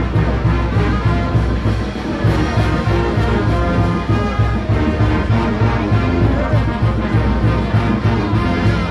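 Brass band playing a tune with trumpets and trombones over a steady, regular bass beat.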